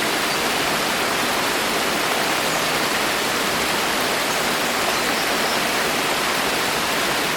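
Steady heavy rain falling in a forest, an even, dense hiss.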